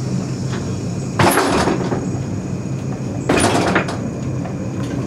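Funicular car and its haul cable running with a steady low hum, broken twice by a short, loud clatter, about a second in and again about three seconds in.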